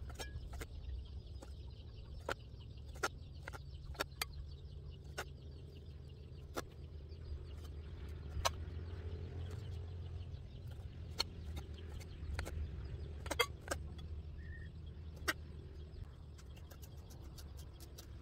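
Kitchen knife slicing vegetables and chopping herbs on a thick wooden chopping block: irregular sharp knocks of the blade meeting the wood, about one every second or so.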